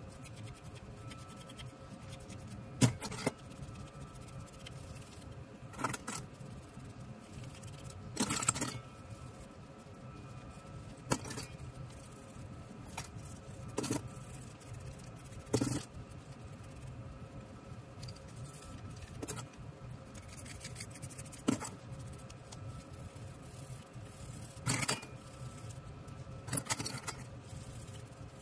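Small metal air-screwdriver parts knocking and clinking against a steel bowl of solvent as they are handled and scrubbed with a toothbrush, about a dozen irregular clinks a second or few apart. A steady low hum runs underneath.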